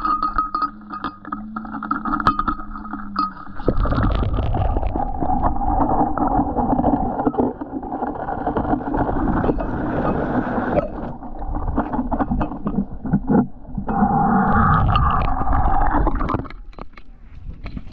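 Muffled underwater sound picked up by a camera held under a lake's surface: dense water noise with many small knocks against the housing. There is a steady tone for the first few seconds, and the sound drops off near the end as the camera comes up to the surface.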